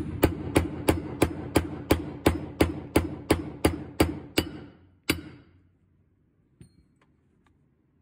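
Ball-peen hammer tapping a steel spring pin into the wobble box casting, about three even blows a second, with the metal ringing between blows. The taps stop about four and a half seconds in, and one last blow follows just after five seconds as the pin seats flush.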